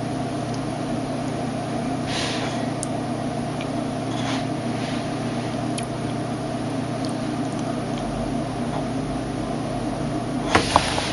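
Steady low machine hum with a few brief rustles, about two and four seconds in, and a pair of short knocks near the end.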